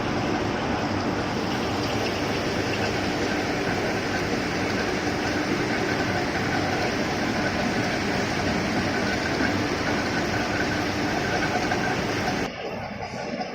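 Loud steady industrial noise of a rolling mill and its furnace: a dense machinery and burner din with a faint steady hum. It drops abruptly to a quieter, duller sound near the end.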